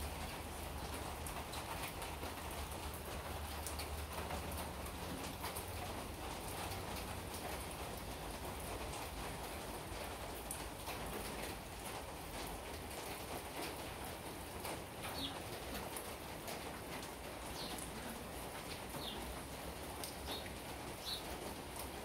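Steady rain falling on wet paving, with scattered drips and splashes. A few short, high sounds stand out in the second half.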